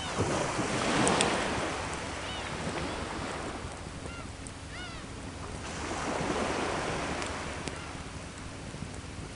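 Sea waves breaking and washing up the shore, two swells about five seconds apart, with a few sharp pops from a wood campfire.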